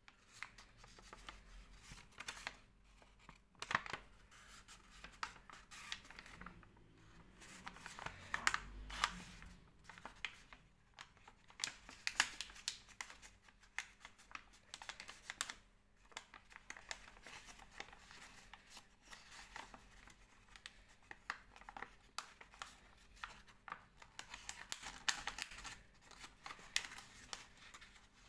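A sheet of paper rustling and crinkling as it is folded and creased by hand, with many short, irregular crackles and rubs.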